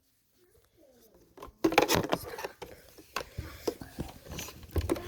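Plastic clicks, knocks and rattles from a Wyze robot vacuum being handled and turned over, starting after a second and a half of near silence.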